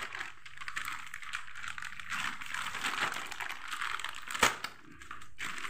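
Plastic packaging crinkling and rustling as a new, still-bagged power cable is handled, with one sharp click about four and a half seconds in.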